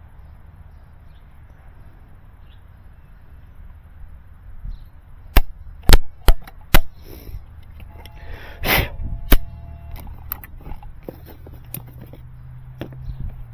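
Sharp plastic clicks and snaps from handling fiber-splicing equipment, with about four loud ones in quick succession about five seconds in and a longer crackle a few seconds later. A short steady tone and a low hum come in near the end.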